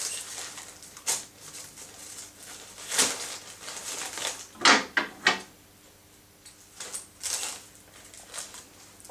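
Tissue paper rustling and crinkling as it is wrapped and pressed around a bouquet's stems, broken by a few short sharp clicks, the two loudest about five seconds in.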